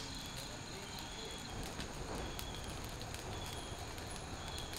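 Straw and cow-dung-cake bonfire crackling with scattered sharp pops, over a steady high chirping of insects.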